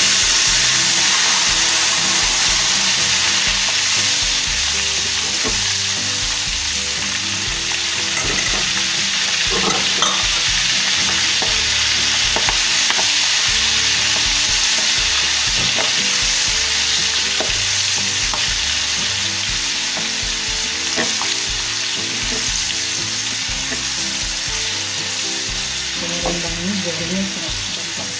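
Food frying in hot oil in a wok: a loud sizzle that starts suddenly as the food goes in, then bubbles steadily and eases slowly. A few sharp clicks of the slotted spoon against the wok come through the sizzle.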